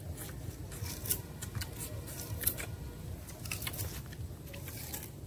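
Sugarcane stalks being bitten and chewed: irregular sharp crunching and cracking of the fibrous cane.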